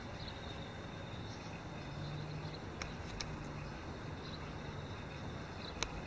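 Steady outdoor background noise with a low hum that comes and goes, a few faint high chirps, and three sharp clicks, the loudest near the end.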